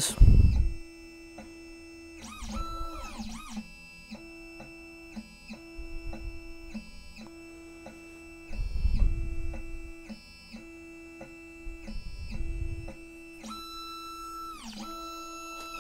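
Background guitar music with sustained notes. A few low rumbles, each about a second long, come through underneath; the loudest is about halfway through.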